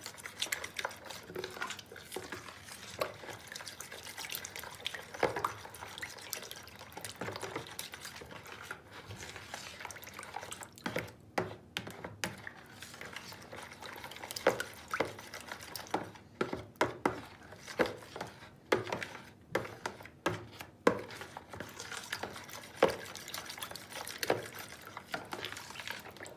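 Metal spoon stirring a thin, milky liquid in a large plastic bowl: the liquid sloshes, and the spoon clicks irregularly against the bowl.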